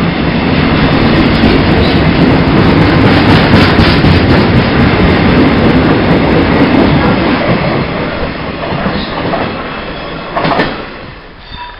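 An engineering freight train of empty wagons running past close by, the wheels clattering over the rail joints. It is loudest in the first half and fades away after about eight seconds as the last wagons recede. There is a short sharp knock near the end.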